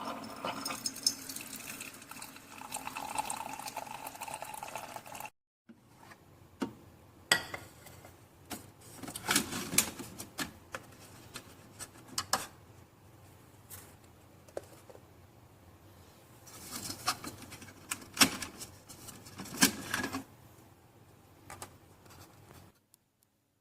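A single-serve pod coffee maker running with a steady hum and water noise for about five seconds, then, after a sudden cut, scattered clicks and knocks of the machine being handled.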